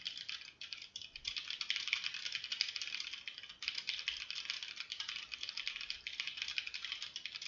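Fast, continuous typing on a computer keyboard: a rapid stream of key clicks, broken by a brief pause about three and a half seconds in.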